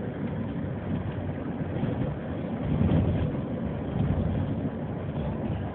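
Road and engine noise inside a moving taxi cab: a steady low rumble of tyres and engine that swells briefly about three seconds in.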